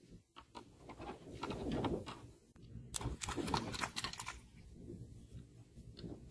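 A hooked fish thrashing and splashing in shallow pond water as the line is hauled in, a choppy churning that builds to a dense flurry of splashes about three to four seconds in, then eases off.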